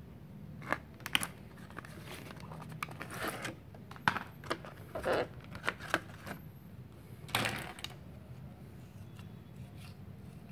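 Clear plastic blister packaging crackling and clicking in irregular bursts as a pair of water pump pliers is worked out of it, with the longest crackle about seven seconds in, then quieter.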